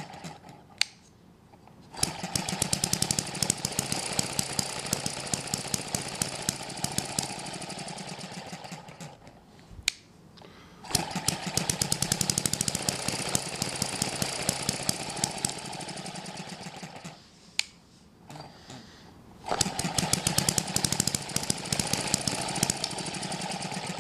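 Eachine ET6 horizontal hit-and-miss model engine with flying-ball governor running: it fires in runs of rapid popping lasting several seconds. Three times the firing stops for one to two seconds while the governor holds the exhaust valve open and the engine coasts without compression, then it fires again once it has slowed.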